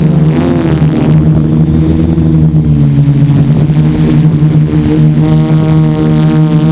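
DJI F450 quadcopter's electric motors and propellers whirring, heard from the camera mounted on the frame, the pitch wavering up and down as the motors change speed to steer and hold position.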